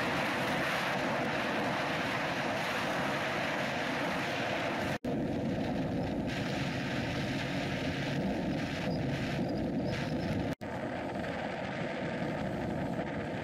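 Motorboat underway, with wind buffeting the microphone over the motor and water noise as one steady rush. It cuts out briefly twice, about five and ten and a half seconds in, and is a little quieter after the second cut.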